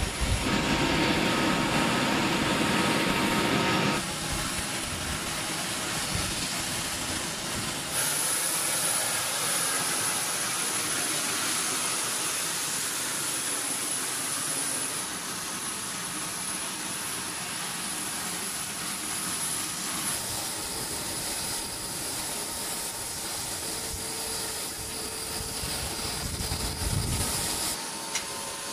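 Jet aircraft engine noise: a steady roar with a thin high-pitched whine. Its level and tone shift abruptly several times.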